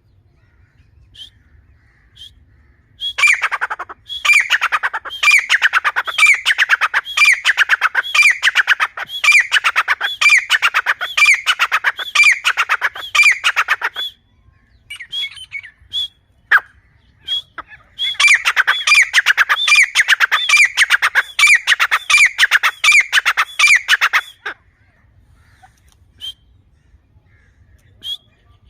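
Grey francolins (teetar) calling loudly in two long bouts of rapidly repeated shrill notes, the first about ten seconds long and the second about six, with scattered single call notes in the gaps.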